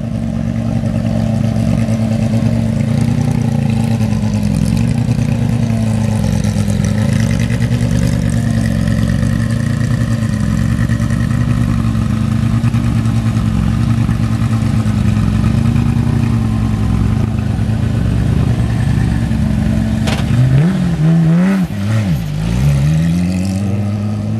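Porsche 997 GT3 rally car's 3.8-litre flat-six, built by Tuthill to R-GT spec, idling loudly with a slightly wavering note. About twenty seconds in it gets a few sharp throttle blips, and near the end the revs climb as it moves off.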